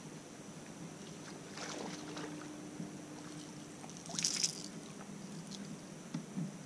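A short splash about four seconds in as a small hooked bass is swung out of the water on the line.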